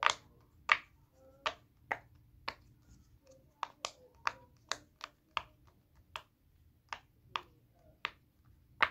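Silicone Pop It fidget toy having its bubbles pressed one after another: a string of sharp little pops, roughly two a second at an uneven pace, with some quick pairs.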